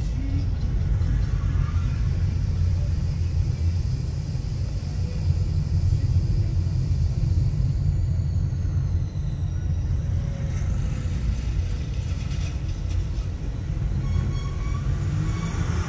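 Steady low rumble of a moving vehicle and road traffic.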